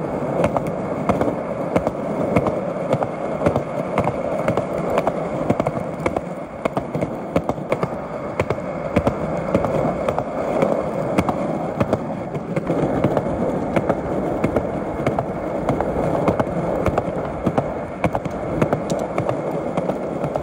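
Skateboard wheels rolling steadily over a concrete sidewalk, a continuous rolling rumble with many small clicks.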